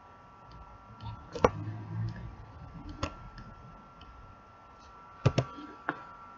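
Computer mouse clicks: single sharp clicks about a second and a half and three seconds in, then a quick pair and one more click near the end. A brief low rumble comes with the first clicks, over a faint steady whine.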